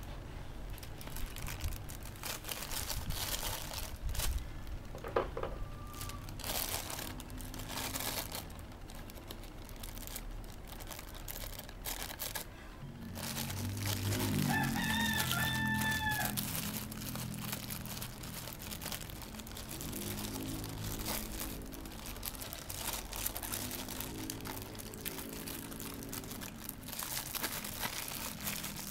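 A plastic courier mailer pouch being handled and torn open by hand, crinkling and ripping in a string of sharp crackles. About halfway through, a rooster crows once.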